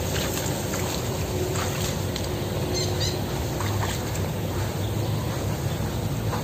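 Steady low outdoor rumble with a few faint ticks and a brief high chirp about three seconds in.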